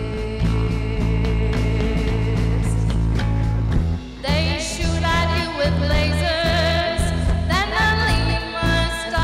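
Live rock band playing: electric guitars, bass and drum kit. A woman's lead vocal comes in about four seconds in, after a brief drop in the music.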